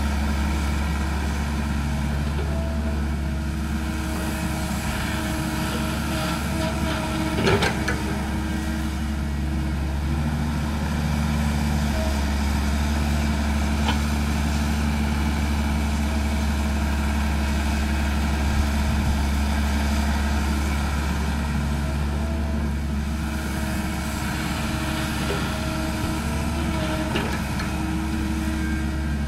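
Crawler excavator's diesel engine running steadily as it digs, with a sharp knock about seven and a half seconds in.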